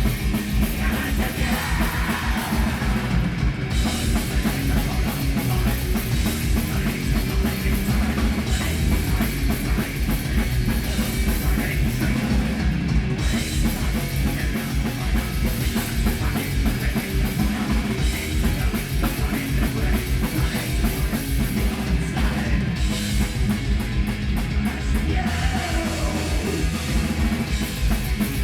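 Live heavy metal band playing: fast, dense drumming under distorted guitars, loud and without a break.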